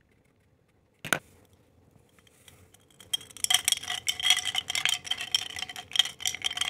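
A single click about a second in, then from about three seconds in a rapid run of clinks and ticks with a ringing note: ice cubes knocking against a glass as it is stirred with a metal spoon.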